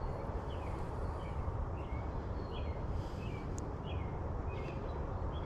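A bird calling in a repeated series of short chirps, about two a second, over a steady low rumble of outdoor background noise.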